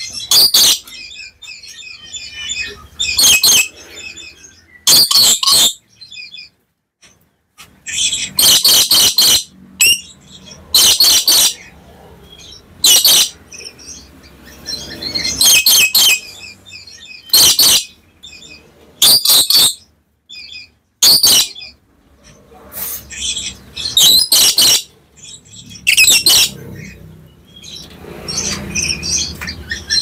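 Black lory calling: loud, short calls that come in bursts every second or two, with softer chattering in between.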